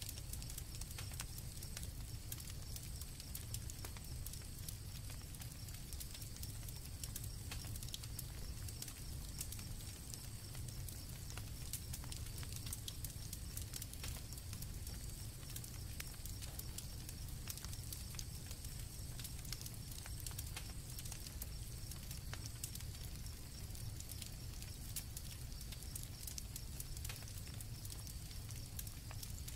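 Campfire crackling with many small pops over a low rumble, with crickets chirring steadily.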